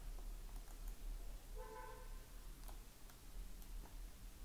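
Faint computer mouse clicks over a steady low electrical hum, with a brief beep about a second and a half in.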